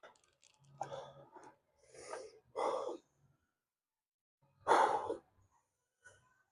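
A man's heavy breathing: four forceful exhales, the loudest about five seconds in.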